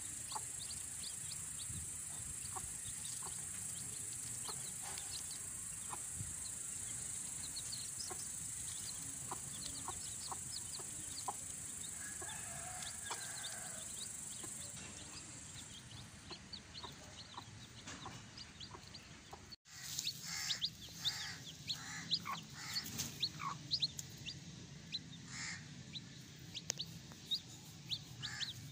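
A brood of young chicks peeping constantly in short rising chirps, with a mother hen clucking low among them. A steady high hiss fades out about fifteen seconds in. After a brief break near twenty seconds the peeping is louder and busier.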